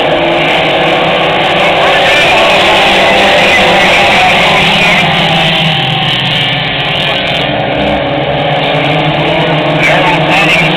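Engines of a pack of short-track stock cars racing around an oval, a loud steady din of several cars running at speed together. Voices are mixed in.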